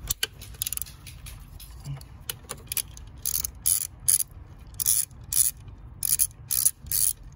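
Socket ratchet clicking in several short runs as the 13 mm nut on the alternator's positive cable terminal is undone.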